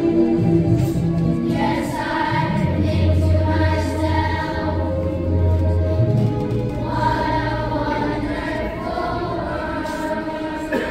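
Children's choir singing a slow passage in long held notes.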